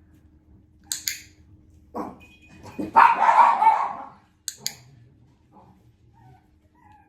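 A dog barking in a loud burst lasting about a second, starting about three seconds in, with a couple of sharp double clicks before and after it.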